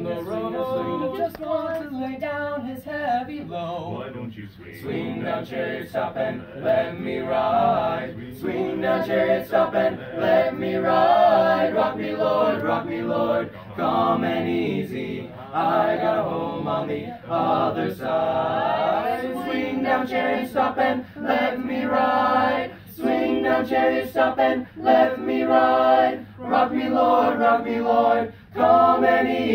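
A cappella ensemble of seven teenage boys singing in harmony, phrase after phrase with short breaths between.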